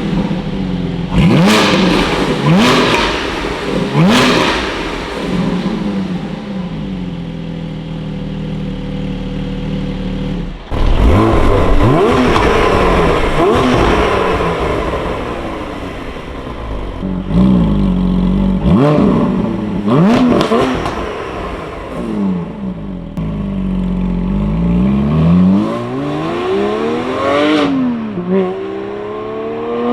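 Porsche 718 Cayman GT4's 4.0-litre flat-six, fitted with Akrapovic OPF link pipes and the stock muffler, being revved: several quick throttle blips that climb and drop sharply, with steadier running between them. Near the end the revs climb more slowly and for longer.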